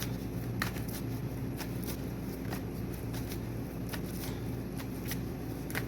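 Tarot cards being shuffled and handled, with irregular light flicks and snaps about once or twice a second, over a steady low hum.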